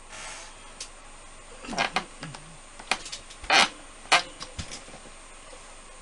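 A short hiss, then a series of irregular knocks and clicks of small hard objects being handled and set down, the loudest about three and a half seconds in.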